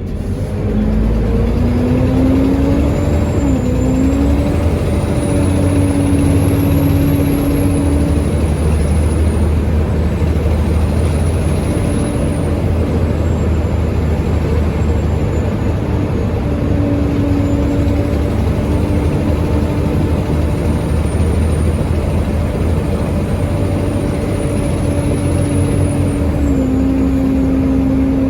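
Volvo B7TL bus's engine running on the move, a steady diesel drone whose note steps down now and then. Over it, a loud high turbo whistle rises and falls several times: the bus's noted 'hoover' whine.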